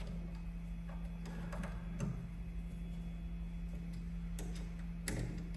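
Scattered small metallic clicks, about half a dozen at uneven intervals and the loudest near the end, as an Allen key works a bolt fastening a milling spindle attachment onto a desktop CNC lathe. A steady low hum runs underneath.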